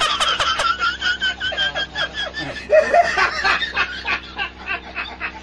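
A person laughing: a long run of quick, high-pitched laughs.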